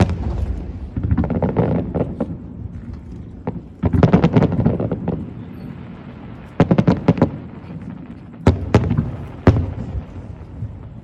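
Aerial fireworks shells bursting over the sea: sharp bangs, several in quick clusters, each trailing off in a low rumble.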